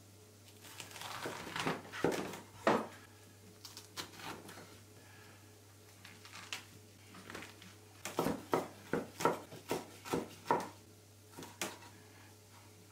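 Chef's knife chopping lettuce on a wooden chopping board: the blade knocks on the board with the crunch of the leaves. A few scattered cuts come first, then a quick run of about seven chops a little past the middle.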